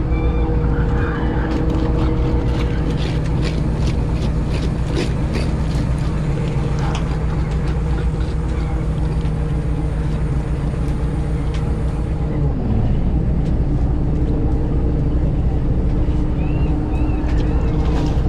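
Fishing boat's engine running with a steady low hum. Several sharp knocks and clatters come in the first third, and the engine note shifts briefly about two-thirds of the way through.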